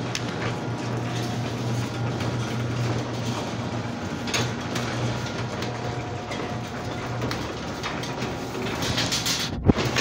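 Chamberlain WD832KEVG garage door opener running, moving the door along its track with a steady motor hum. A clunk comes near the end.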